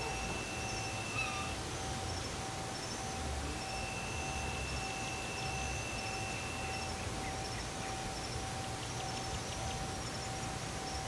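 Insects calling at night: a high chirping that repeats in short groups over a steady hiss. A steady whistle-like tone above it breaks off about a second and a half in and returns for a few seconds in the middle. A lower steady tone runs underneath throughout.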